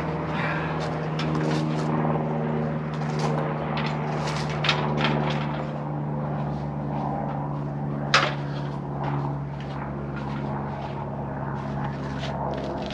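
Steady motor drone, like an engine running, under scattered clicks and knocks of hand work, with one sharp knock about eight seconds in.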